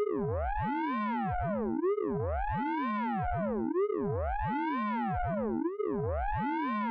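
Synthesized 'radar pulse train' sound effect from the Orange Vocoder plugin: a layered cluster of electronic tones swooping up and down in arches, the same cycle repeating steadily about every two seconds.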